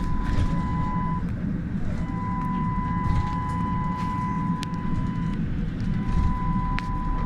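Trolleybus in motion heard from inside the cabin: a steady low rumble with a constant high electric whine that drops out twice, about a second in and again near the end. A couple of sharp clicks sound over it.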